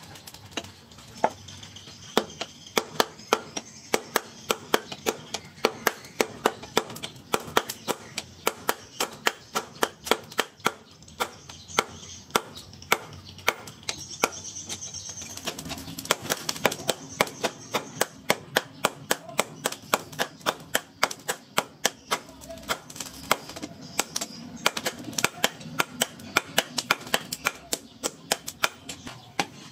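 Hand hammer striking red-hot steel bar on a round steel post anvil: sharp metal-on-metal blows, about three a second, in a steady forging rhythm. A low steady hum joins in the background about halfway through.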